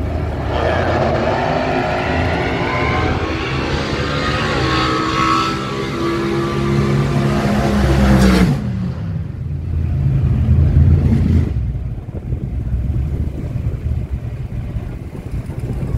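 Loud car engine running for about eight seconds, its pitch wavering and rising near the end, then cutting off sharply; a lower engine sound swells again briefly a little later, over a steady low rumble.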